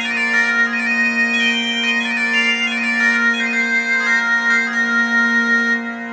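Bagpipes playing a slow melody on the chanter over a steady drone. Near the end the melody stops and only the drone goes on, a little quieter.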